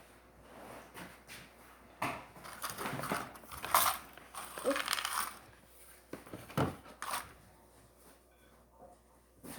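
Irregular light clicks and rustles of hands handling wooden toothpicks and play-doh on a tabletop, busiest in the middle with a sharper tap or two a little later.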